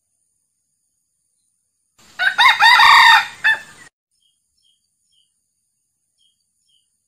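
Male red junglefowl crowing once, about two seconds in: a short crow of under two seconds, its last note a little apart.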